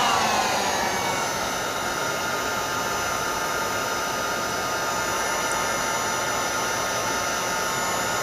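Electric heat gun blowing steadily with a whine, heating a solder-seal heat-shrink connector on a broken wire until the solder melts. Its whine slides down a little and settles about a second in.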